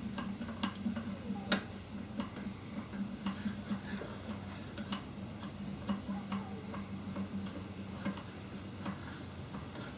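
Irregular light metallic clicks and scrapes as the milling machine saddle's gib strip is worked out of its dovetail by hand, over a steady low hum.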